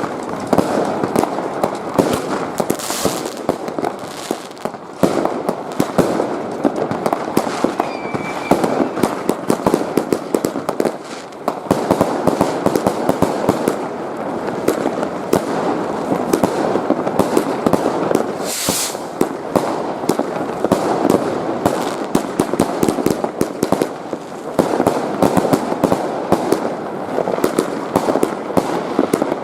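Dense barrage of fireworks and firecrackers: many bangs and cracks overlapping without letup, with a few short hissing flares in between.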